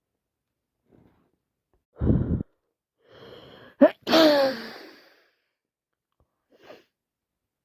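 A woman's wet sneeze from a head cold, about four seconds in: a short catching in-breath, then the sneeze with a falling voiced tail. About two seconds in there is a brief low burst of breath.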